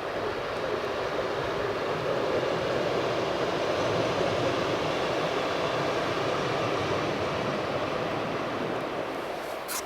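Train running past with a steady rumble that swells over the first few seconds and eases toward the end. A short click comes just before the end.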